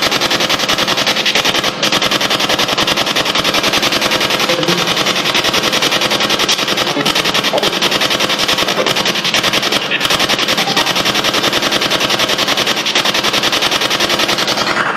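SB7 spirit box radio scanner sweeping rapidly through radio stations: loud, continuous static chopped into a fast, even stutter, with brief fragments of broadcast sound here and there.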